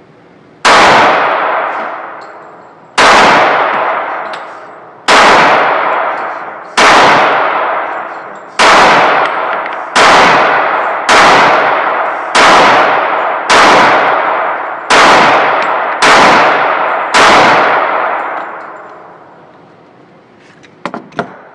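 Twelve gunshots fired one at a time in an indoor concrete shooting range, each ringing on in a long echo. The first shots come about two seconds apart, and the later ones quicken to about one a second.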